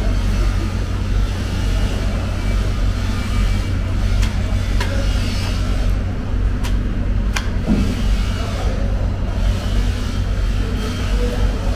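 Steady low mechanical hum, with a few sharp clicks about halfway through.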